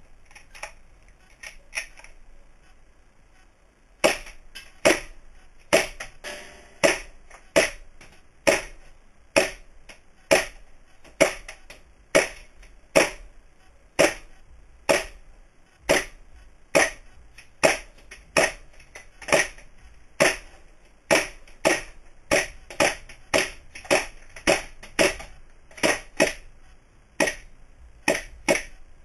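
WE Beretta M92 longslide gas blowback airsoft pistol firing single shots, each a sharp crack with the slide cycling back. Two or three shots come first, then after a short pause a steady string at about one shot a second that quickens to nearly two a second for a stretch near the end.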